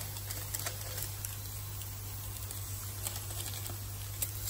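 A few faint scattered clicks and taps of utensils and ingredients being handled at a plastic blender jar, over a steady low hum.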